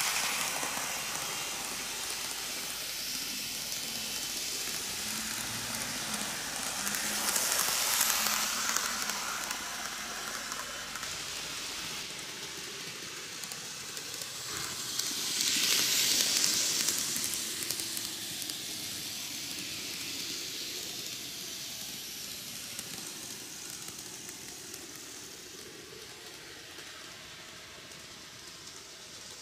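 N gauge model electric train running on TOMIX cant track: a steady hissy rattle of small wheels on rail and the motor. It swells louder twice as the train passes close by, then grows fainter near the end.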